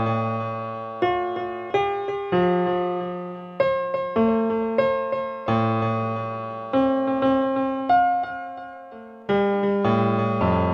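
Slow background keyboard music in a piano sound: single notes and chords struck about once a second and left to fade.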